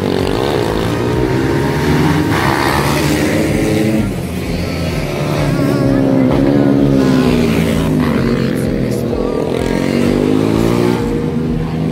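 Racing motorcycles revving hard as they come round the circuit, engine pitch rising and falling several times as riders accelerate and pass.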